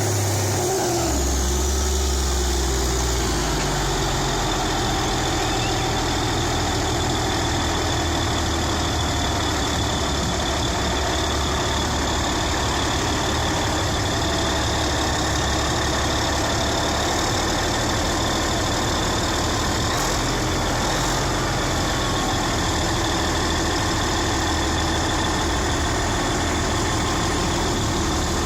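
Heavy diesel engine running steadily at a low, even speed.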